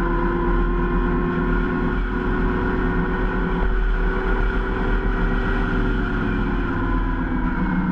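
Zero SR electric motorcycle's motor whining steadily while riding at speed, over wind and road noise. The whine's pitch drops a little near the end as the bike eases off.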